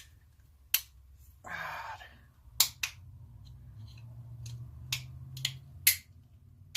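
Sharp clicks and clacks of screwdrivers and small metal hand tools being picked up and set down, about six spread over several seconds, with a short scraping rustle about a second and a half in.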